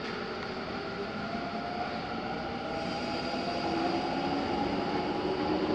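Seibu New 101 series electric train starting to pull away from the platform, its motor hum slowly rising in pitch and getting louder as it gathers speed.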